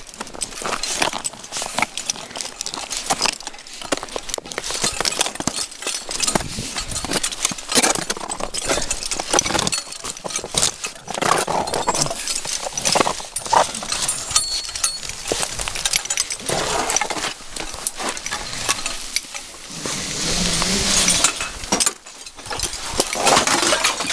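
Cramponed climbing boots crunching, kicking and scraping on snow, ice and rock in irregular steps while descending on a rope, with knocks and rustling of clothing and gear close to the microphone. A steadier scraping rush comes about twenty seconds in.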